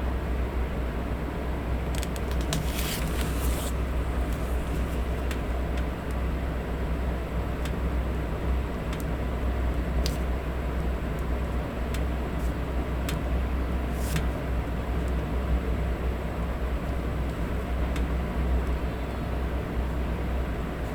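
Steady electric fan noise with a low hum underneath. Occasional light clicks, with a short rustle of paper about two to four seconds in.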